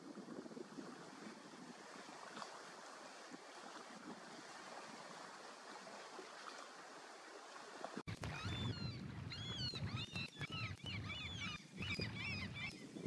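Steady outdoor hiss of wind and water, then, after an abrupt change about eight seconds in, many rapid high chirping calls of birds over wind rumbling on the microphone.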